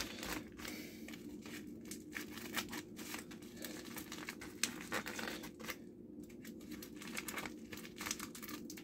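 Packaging being handled and opened: crinkling and tearing with many small clicks and rustles, over a steady low hum.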